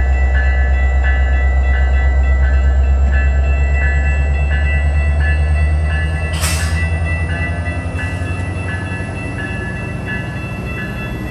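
Metra diesel commuter train running at the station with a heavy low rumble that eases off about halfway through, while a thin whine rises slowly in pitch. A bell rings steadily about twice a second, and a short burst of hiss comes a little past the middle.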